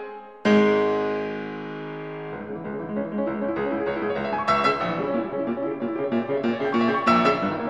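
Piano music: a chord struck about half a second in rings and fades, then a new phrase of evenly repeated notes.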